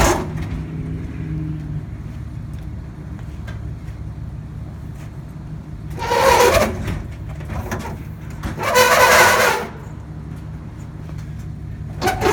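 A steady low engine-like hum, broken by two loud bursts of noise about six and nine seconds in, and a third starting near the end.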